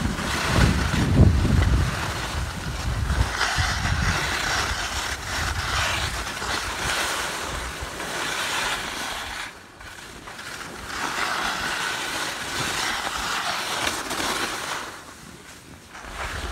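Skis hissing and scraping over choppy snow, the hiss rising and falling several times and dropping away briefly about ten seconds in and near the end. Wind rumbles on the microphone, loudest in the first two seconds.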